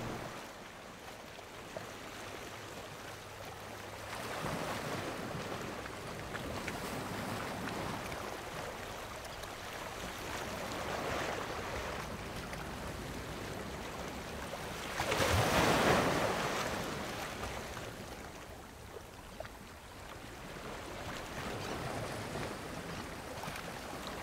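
Water washing around rocks, a steady rush that swells and ebbs every few seconds like waves, with the biggest surge about fifteen seconds in.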